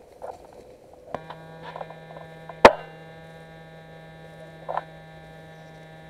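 A single sharp crack about two and a half seconds in, an airsoft sniper rifle firing, with a few fainter short rustles around it. A steady held chord of background music starts about a second in.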